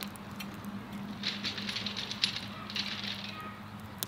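Wood fire crackling in a camping fire pit, with scattered sharp pops and two denser spells of crackling in the middle, over a steady low hum.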